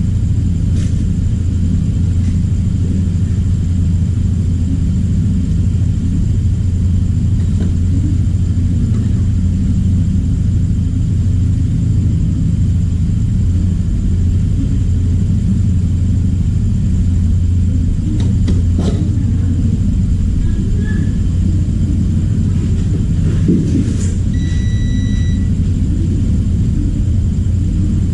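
Steady low rumble or hum. A short electronic beep sounds about 24 seconds in, and there are a few faint clicks.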